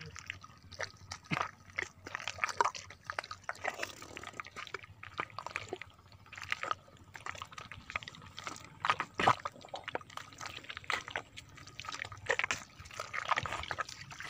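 Wet mud squelching and water sloshing as hands dig and grope into a burrow in waterlogged mud, with irregular sucking clicks and splats.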